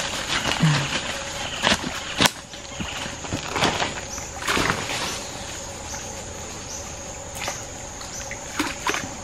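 Creek water splashing and sloshing as a cast net is gathered and lifted out by hand, with scattered sharper splashes and knocks. A steady high-pitched insect drone runs underneath.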